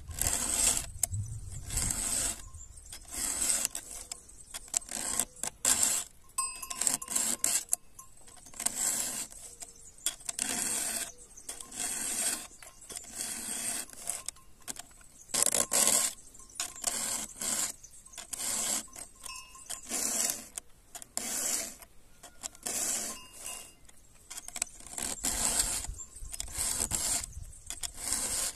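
Round file rasping across the cutting teeth of a chainsaw chain during hand sharpening, in repeated strokes about a second apart with short pauses between runs as the file moves on to the next tooth.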